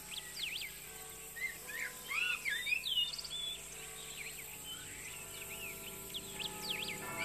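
Birdsong of quick chirps and swooping whistles over a faint held musical chord.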